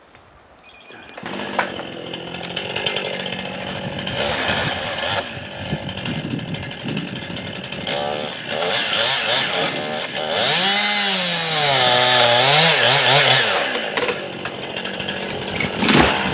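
Chainsaw starting to cut about a second in and running under load through a tree, its engine pitch sagging and rising again as the chain bites. It is finishing the felling cut through the last holding wood.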